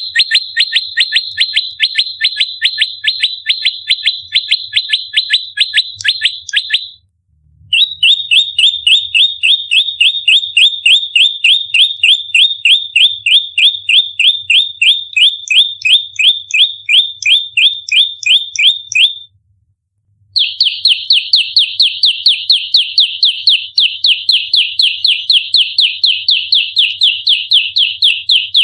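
Prenjak lumut (a small Javanese prinia-type warbler) giving its rapid-fire fighting call: a fast, unbroken string of short, sharp, falling chips, about four a second. The string breaks twice with short gaps.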